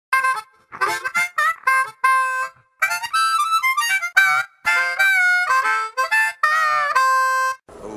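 Music: a solo melody of separate notes in short phrases with brief gaps between them, ending on a held note that stops about a second before the end.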